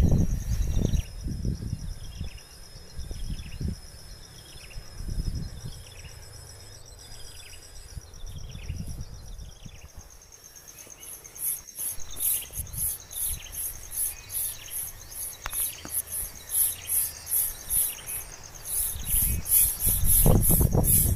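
Outdoor insect chorus: a steady high insect drone with repeated short falling chirps, then a rhythmic high chirping at about two pulses a second from about halfway through. Low rumbles come near the start and end.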